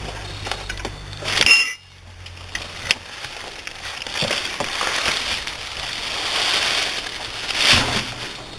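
A sharp metal clank with a brief ring, then several seconds of scraping and rustling, typical of a removed wheel and tools being handled.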